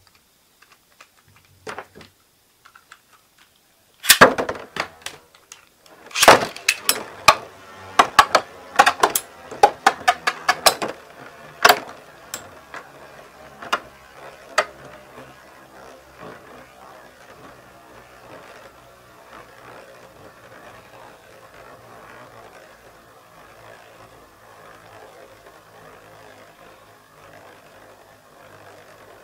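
Metal-wheel Beyblade tops launched into a plastic Bey stadium about four seconds in, then a rapid flurry of sharp metallic clicks and knocks as they collide for several seconds, a few last separate knocks, and a faint steady whir as they keep spinning.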